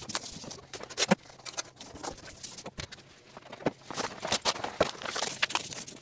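Sheets of stiff 3M welding and spark deflection paper being handled and pressed against the inside of a windshield: irregular crinkling and rustling with scattered light taps and clicks.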